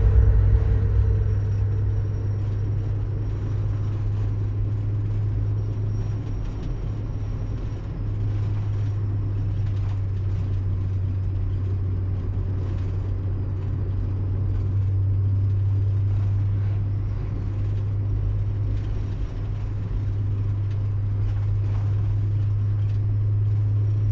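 Steady low drone of a car's engine and tyres on a tarmac highway, heard from inside the cabin while cruising.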